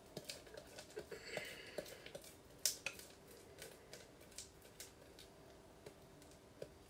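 Faint scattered clicks, taps and scrapes as hot peanut brittle is poured and scraped out of a glass bowl onto a metal cookie sheet, with one louder tap about two and a half seconds in.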